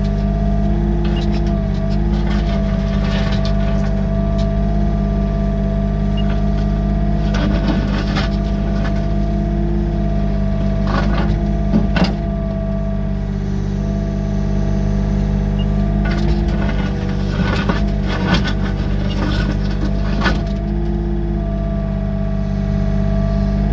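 Yanmar excavator's diesel engine running steadily, heard from inside the cab, with higher hydraulic tones coming and going as the arm and bucket move. At times gravel scrapes and clatters under the bucket, most around the middle and again a few seconds later.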